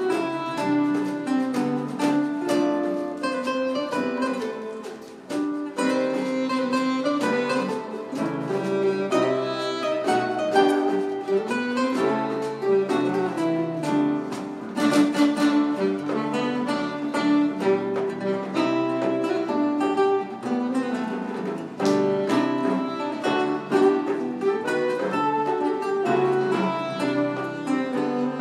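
Live instrumental jazz duet: a nylon-string acoustic guitar plays plucked chords and lines while a saxophone holds sustained melody notes over it.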